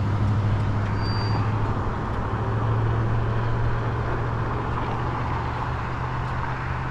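Steady wind rush and tyre-on-pavement noise of an e-bike riding along a street, with a constant low hum underneath.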